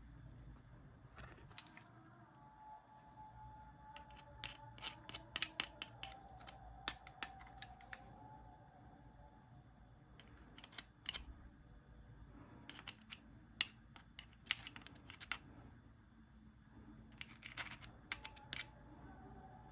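Irregular sharp clicks and light taps of small plastic and metal parts being handled and worked on a washing-machine door lock under repair. They come in clusters, thickest about a third of the way in and again in the second half.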